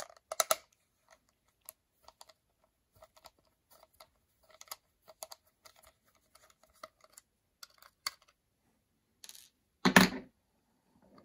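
Small irregular clicks and ticks of a Torx screwdriver bit turning a tiny screw out of a plastic speaker housing, with a louder knock and rustle near the end.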